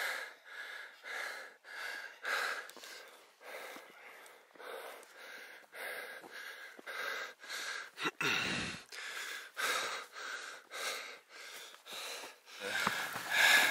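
Heavy, rhythmic panting of a person out of breath from climbing a steep trail, about two breaths a second.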